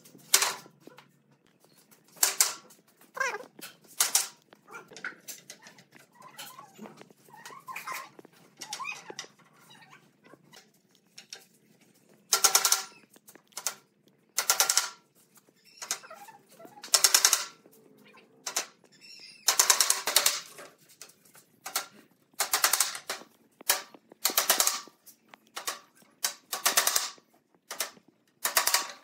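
Cordless impact driver driving screws into pallet-wood slats, in a string of short rattling bursts about every one to two seconds, louder in the second half.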